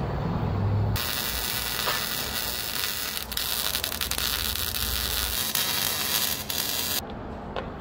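MIG welder arc crackling and sizzling as a steel harness bar is tack-welded into a tube-frame roll cage, after about a second of low hum; the arc runs for about six seconds and cuts off near the end.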